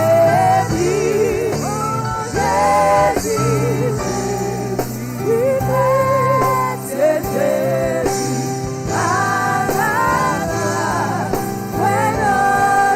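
Gospel worship music: a voice singing a slow hymn melody with long held, wavering notes over sustained accompaniment chords.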